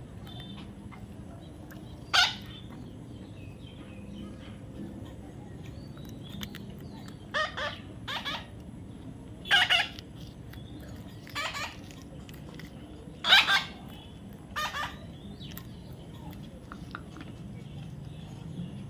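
A baby parrot calling in short squawks, about eight of them at irregular gaps, the loudest a little past the middle.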